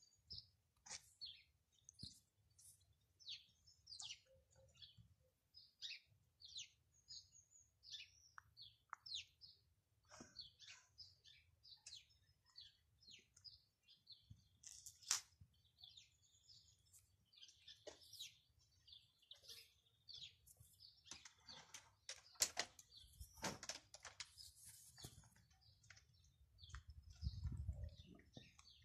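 Faint chirping of small birds: many short, high chirps, one after another, busiest a little past the middle. A low rumble comes in near the end.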